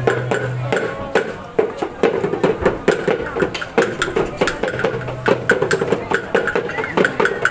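Maengket song and dance: a group of young performers singing together in chorus, with many sharp percussive beats struck along with it.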